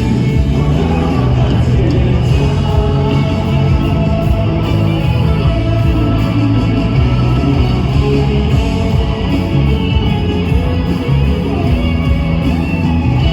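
Live rock band playing at full volume, with electric guitars and drums under singing and shouted vocals, echoing in a large hall.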